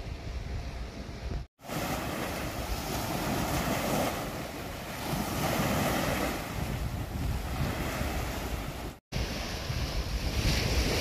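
Small sea waves washing onto a sandy beach, surging and easing, with wind rumbling on the microphone. The sound drops out briefly twice, about a second and a half in and near nine seconds.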